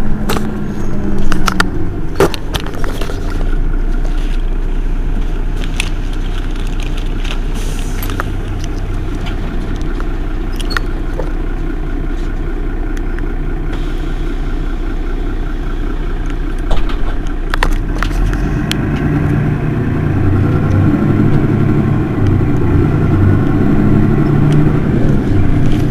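Mercedes-Benz Citaro city bus's rear-mounted diesel engine idling steadily, with a few sharp clicks and knocks over it. About three-quarters of the way through, the engine grows louder and fuller.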